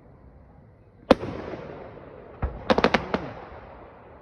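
Fireworks going off. One sharp bang about a second in rolls off in a long echo. Then a thud and a quick string of about five cracks come just before the middle and fade in echo.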